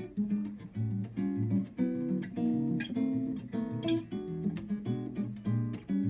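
Nylon-string classical guitar played fingerstyle: an instrumental passage of plucked chords over a moving bass line.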